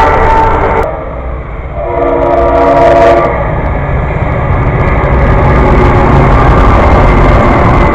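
Train horn sounding a chord of several notes that cuts off about a second in, then a second blast of about a second and a half, over the steady low rumble of the train.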